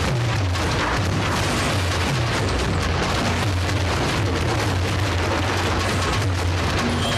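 A row of large barrel drums beaten fast and continuously: a dense, low rumble of strokes under a steady rush of noise, even in loudness throughout.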